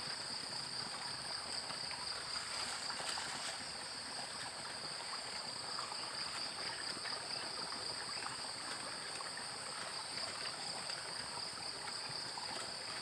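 Running floodwater trickling and flowing, under a steady, high-pitched insect chorus that holds two unbroken tones throughout.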